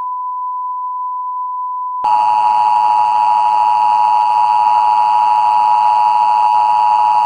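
Broadcast line-up tone heard with colour bars: one steady pure tone. About two seconds in it switches to a louder, buzzier tone with hiss underneath.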